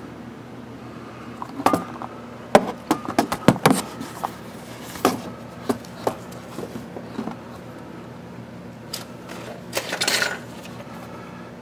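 Metal clinks, taps and knocks of hand tools and brake parts being handled while fitting a motorcycle's rear brake caliper and pads: a quick run of clinks early, a few single taps, and a short rattle near the end, over a steady low hum.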